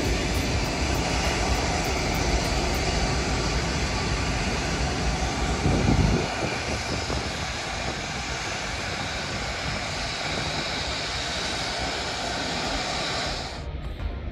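Antonov An-124-100's four D-18T turbofan engines running with steady jet noise as the freighter rolls along the runway. A heavy low rumble swells about six seconds in, then falls away. The sound cuts off abruptly just before the end.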